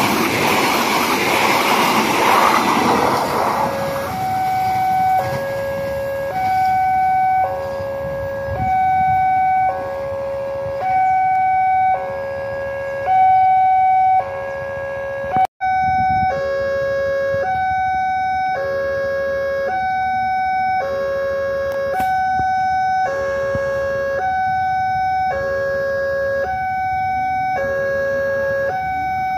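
Passenger train cars rumbling past on the rails, fading over the first few seconds. Then a level-crossing warning alarm sounds, two electronic tones alternating high and low in a steady cycle about every second and a half. It breaks off for a moment about halfway and resumes.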